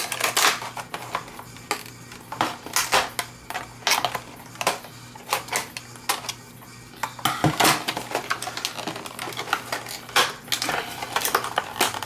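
Stiff plastic retail packaging being handled and pried at to get it open: irregular clicks, crackles and rustles, with a short quieter pause about halfway through.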